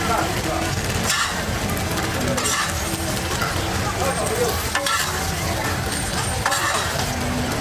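Water-fried buns sizzling on a large round griddle pan, with a metal spatula scraping across the pan a few times as buns are lifted off.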